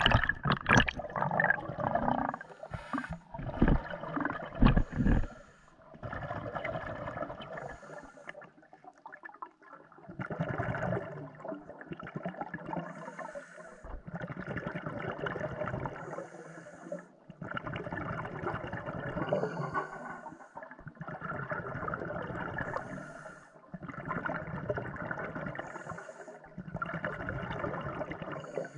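Scuba breathing through a regulator underwater: exhaled bubbles gurgle for two to three seconds at a time, with a short hiss from the regulator between them, in an even cycle roughly every three and a half seconds. Knocks and splashing fill the first five seconds.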